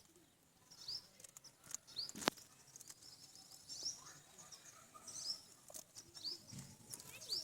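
Parrots chirping: a string of short, high chirps, one every half second to a second, with a single sharp click a little over two seconds in.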